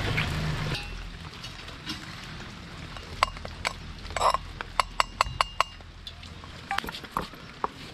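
A steady low hum that cuts off just under a second in, then a run of sharp, irregular clicks and clinks of hard objects striking, starting about three seconds in.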